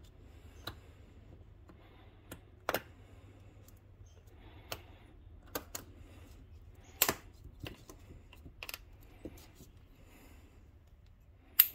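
Irregular small metallic clicks and taps of snap-ring pliers and a steel snap ring being worked into the groove of a coilover shock's steel end-bearing eye, with a few sharper clicks among them.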